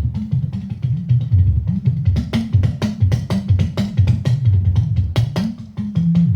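Talking drum played in a fast, dense rhythm, its low notes bending up and down in pitch as the cords are squeezed, with sharp cracks of the curved stick.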